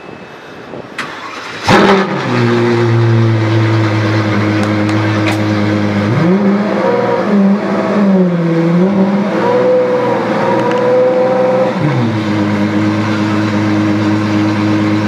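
DeTomaso P72's engine starting with a loud flare about two seconds in and settling to a steady idle. It is then revved up and down, unevenly, for about six seconds before dropping back to idle near the end.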